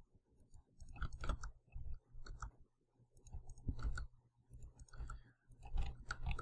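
Computer mouse and keyboard clicks while working in 3D modeling software: short sharp clicks in small clusters every second or two, over a faint steady low hum.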